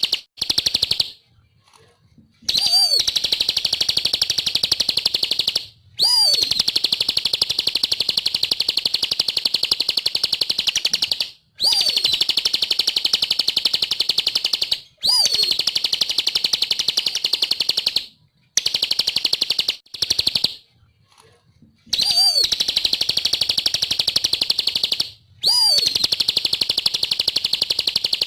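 Ciblek (bar-winged prinia) singing hard in long bouts of rapid, high-pitched trilling chirps, each lasting several seconds, with brief pauses between. Many bouts open with a quick swooping note.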